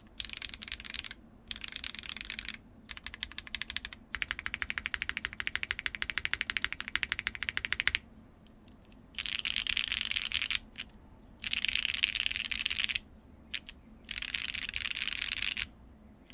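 Mechanical keyboard with HMX Sonja factory-lubed linear switches, on a Neo 75Cu board, being typed on in bursts. There are three short bursts, then a long fast, even run of keystrokes, a pause, and three more bursts of rapid typing.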